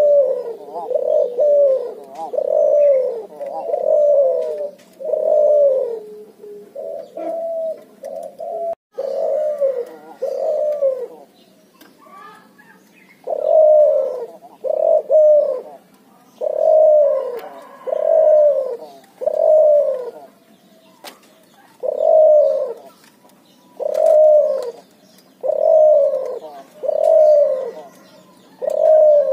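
Hybrid dove, a cross between a Barbary (ringneck) dove and a spotted dove, cooing in a long run of repeated low coos, about one every second and a half, with a short break near the middle.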